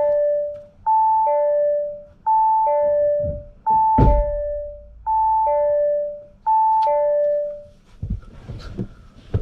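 Audi A3 dashboard warning chime: a two-note ding-dong, high then low, repeating about every 1.4 s and stopping about 8 seconds in. It signals warning faults on the dash just after the battery was reconnected, such as the bonnet not being closed properly. A single knock sounds about four seconds in.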